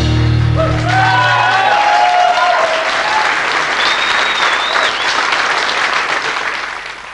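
The band's last chord rings out and dies away in the first two seconds while a studio audience applauds, with a few high whistles over the clapping. The applause fades out near the end.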